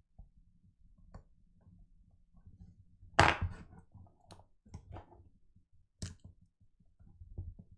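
Scattered clicks and knocks of tools and parts being handled on a workbench, the loudest one about three seconds in, over a faint low hum.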